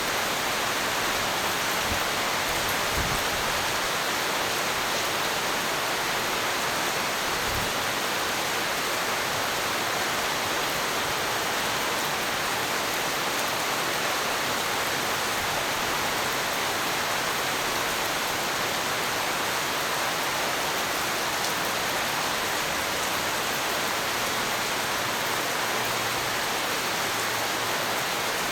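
Steady rain falling hard, an even hiss with no break or swell.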